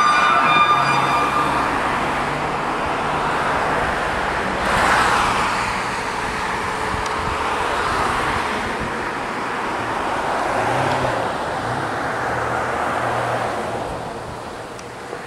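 Road traffic: vehicles passing one after another, about three seconds apart, the sound fading near the end. A brief steady electronic tone with overtones sounds in the first second or so.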